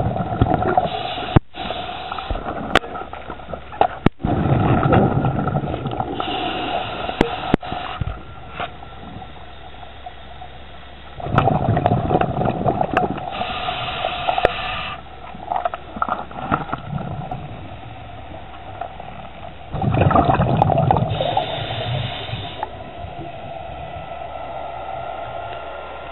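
Scuba diver breathing through a regulator underwater: loud bursts of bubbling exhalations about every nine seconds, with a higher, shorter hiss from the regulator between them. A few sharp clicks come in the first eight seconds.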